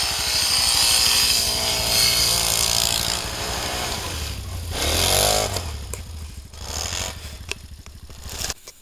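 ATV engines running close by, a BRP and a Yamaha Grizzly riding past. The engine note dips and rises about five seconds in, and the sound cuts off abruptly near the end.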